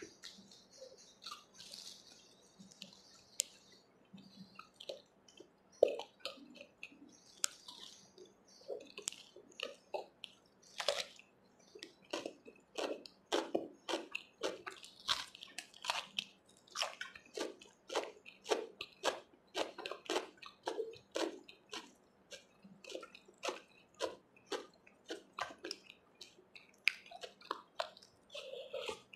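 Close-up chewing: wet, smacking mouth sounds of someone eating puri dipped in chickpea curry. Sparse at first, then quick, regular chews about two a second through most of the rest.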